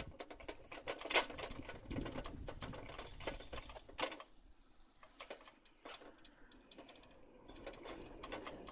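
A steel-and-aluminium miter saw stand rolled across the floor on solid 12-inch plastic wheels, rattling in a quick, dense clatter that dies down about four seconds in.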